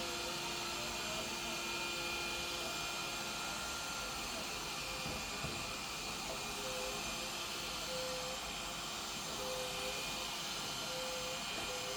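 Han Kyung-hee robotic window cleaner running on the glass: a steady suction-fan hiss with a faint tone that wavers in pitch from about halfway through.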